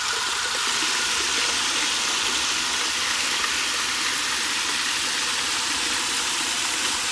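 Garden hose nozzle on its shower setting spraying into a round concrete pot of water: a steady, loud hiss of spray splashing onto the water surface.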